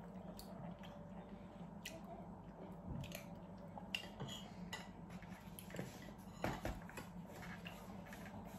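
Quiet eating sounds: chewing, with scattered light clicks and clinks of chopsticks and cutlery against dishes, the strongest about six and a half seconds in.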